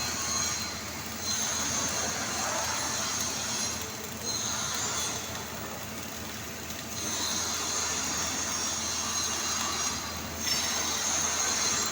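MIG welder arc crackling and hissing on steel in runs of a few seconds, stopping briefly between beads several times.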